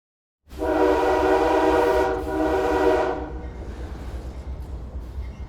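Freight locomotive air horn sounding a loud chord, starting suddenly, with a brief break a little after two seconds in, then stopping, over the steady low rumble of the train, which carries on.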